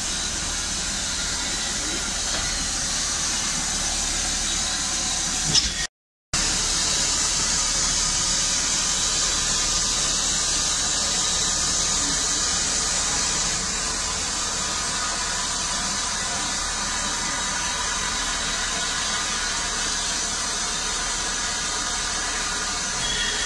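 Steady hiss of steam escaping from a standing Merchant Navy class steam locomotive. It cuts out for a moment about six seconds in, then carries on.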